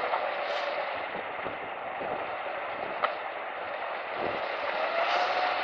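Off-road trial truck's engine running under load as it crawls over quarry rocks, its pitch rising and then falling near the end. A single sharp knock about three seconds in.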